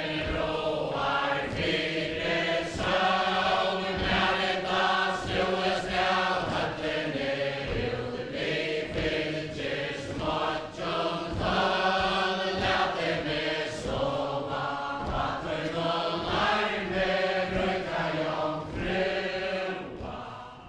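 Faroese chain dance: a mixed crowd of men and women singing a kvæði (ballad) in unison without instruments, in a chanting melody, over the thud of many feet stepping on the floor in time. The sound fades out near the end.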